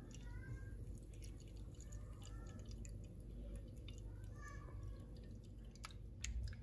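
Faint trickle and drip of strained juice running in a thin stream into a glass of liquid, with scattered small ticks over a low steady hum.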